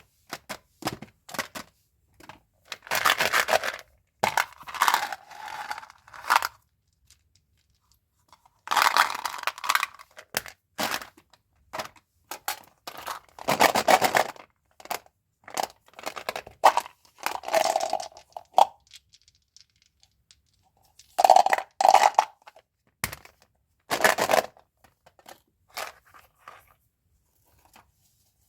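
Candy and gum packaging handled and torn open: bursts of tearing and crinkling a second or two long, broken by short sharp clicks and brief pauses.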